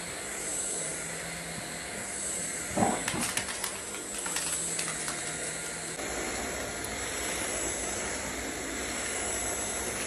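Cordless stick vacuum cleaner running with a steady high whine. A brief louder sound comes about three seconds in, followed by a few clicks.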